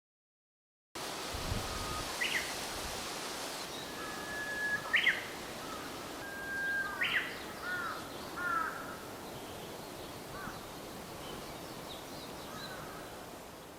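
Japanese bush warbler (uguisu) singing its "hoo-hokekyo" song: a long held whistle ending in a quick upward flick and a tumbling phrase, heard twice. Fainter chirps and a steady outdoor hiss lie underneath, and a low bump comes near the start.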